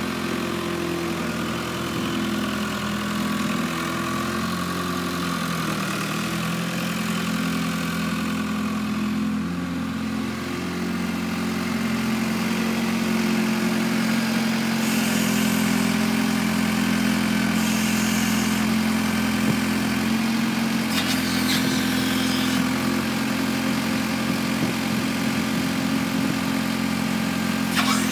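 1996 Rosco RB48 road sweeper's engine running steadily as the machine drives along, its pitch shifting a little in the first several seconds and growing louder from about twelve seconds in as it comes closer.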